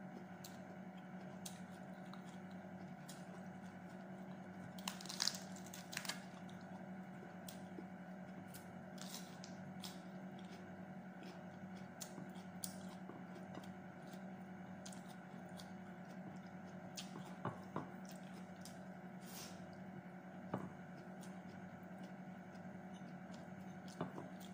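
Mouth sounds of eating by hand: soft wet chewing and squishy smacks, with a few sharper clicks scattered through, over a steady low hum.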